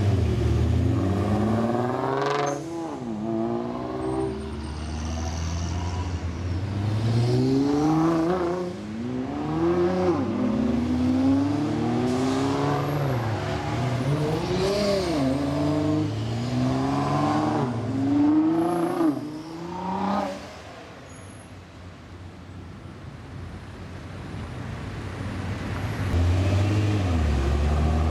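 Nissan GT-R R35 twin-turbo V6 engines revving hard, the pitch climbing and dropping back again and again. The noise dies down for a few seconds, then a deep, loud rumble comes back near the end.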